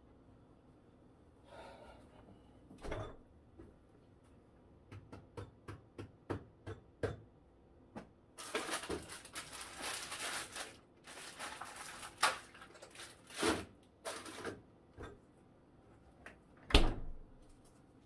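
A person rummaging through a refrigerator: scattered light clicks and knocks, then several seconds of rustling and shifting of items on the shelves. Near the end comes a single loud thud as the fridge door is shut.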